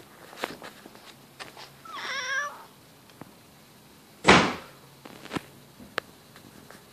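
Grey tabby cat giving one short warbling trill about two seconds in. A loud brief thump, the loudest sound, comes just after four seconds, with a few faint clicks around it.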